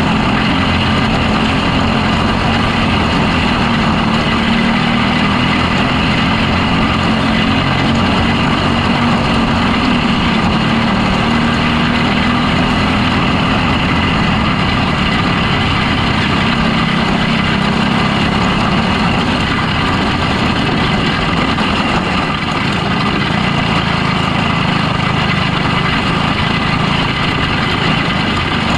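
Onboard sound of a restricted box stock micro sprint car's engine running hard at racing speed on a dirt oval, loud and continuous, its pitch wavering a little as the car goes through the turns.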